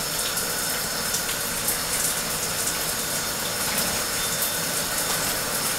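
Shower running: a steady spray of water falling and splashing in a shower stall.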